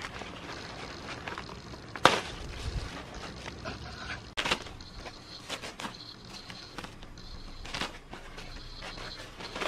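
Irregular knocks, clicks and scrapes from handwork, the loudest a sharp knock about two seconds in.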